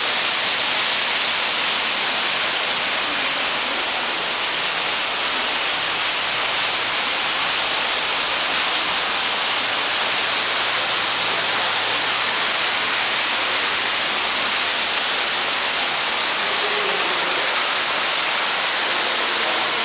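A steady, loud, high hiss of noise with no breaks or distinct events.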